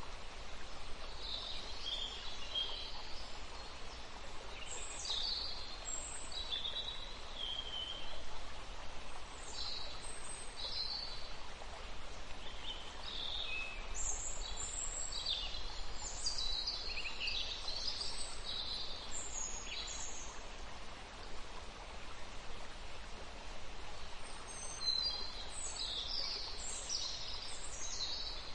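Small birds chirping and twittering in many short, quick notes, some sliding in pitch, over a steady background hiss.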